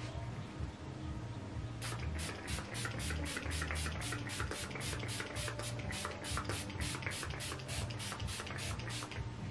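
Fine-mist pump spray bottle of face mist being pumped over and over in quick succession: a rapid run of short, even hisses, about four a second, starting about two seconds in and stopping just before the end.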